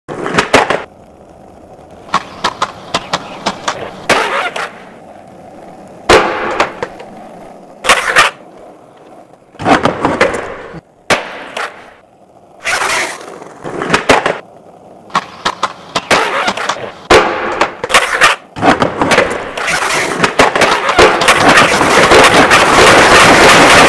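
Skateboard sounds: wheels rolling on hard pavement, broken by sharp clacks of the board popping and landing at irregular intervals. Over the last few seconds a louder, continuous rough rolling noise builds up.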